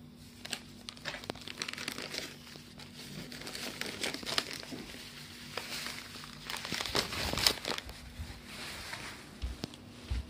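Paper towels and plastic wipe packets rustling and crinkling as a hand rummages in a supplies basket, with irregular crackles that are busiest midway.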